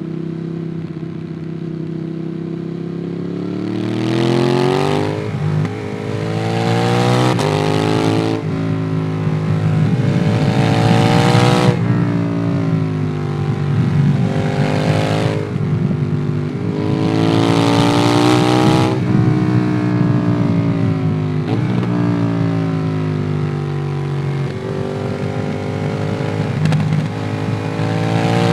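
Ducati Monster 821's L-twin engine through a QD Twin Gunshot exhaust, heard from the rider while on the move: the revs climb and drop again and again as the bike pulls hard several times, each rise lasting one to three seconds before the note falls back, with a calmer lower-revving stretch about two-thirds of the way through.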